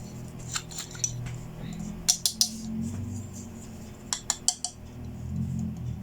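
Small hard plastic toy makeup pieces being handled, giving sharp clicks and clinks in quick runs: a few about half a second in, four near two seconds, and about five around four seconds, over soft background music.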